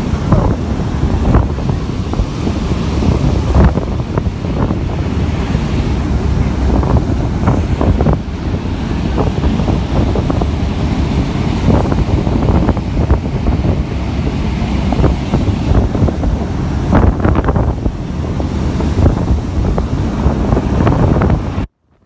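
Wind buffeting the microphone over the rushing, churning wake of a fast-moving boat: a loud, dense rush with frequent gusty thumps. It cuts off abruptly near the end.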